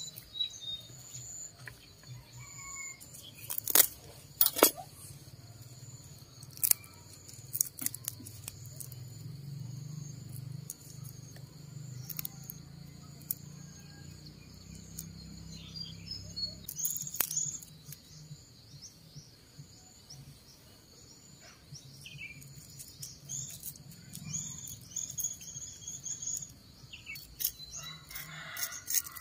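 Garden ambience: a steady high insect trill with birds chirping over it. A few sharp clicks stand out, the loudest two about four seconds in, and there is soft scratching near the end.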